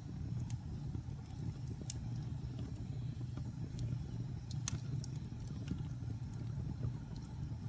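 Wood fire burning in a fireplace: a steady low rumble with scattered sharp crackles and pops, the loudest pop a little past halfway.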